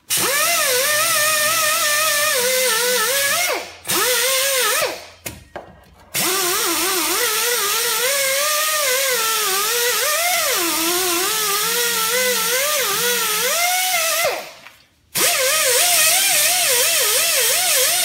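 Air die grinder with a cookie wheel (surface-conditioning disc) grinding on the steering knuckle's hub mounting face, cleaning rust and scale off so the new hub and bearing can sit flush. A loud air hiss runs under a whine whose pitch dips and wavers as the disc is pressed on, and it cuts out briefly three times.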